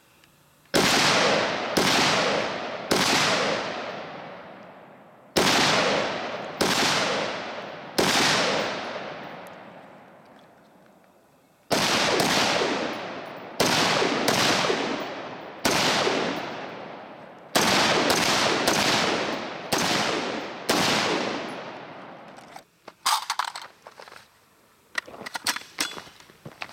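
Semi-automatic AR-15 rifle firing about fifteen single aimed shots at an uneven pace, sometimes two or three close together, each followed by a long fading echo. The shots stop a few seconds before the end, and light handling clicks and rustles follow.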